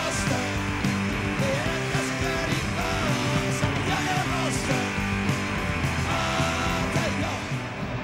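A punk rock band playing live: electric guitars, bass and drums under a sung, half-shouted lead vocal.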